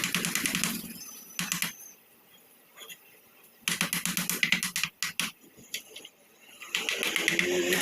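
Honda GX200 single-cylinder engine being cranked in short bursts of rapid clicking with pauses between, then catching and starting to run near the end.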